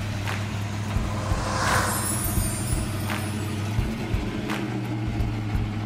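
A 1970 Dodge Coronet's V8 engine idling, with a brief rushing hiss just under two seconds in.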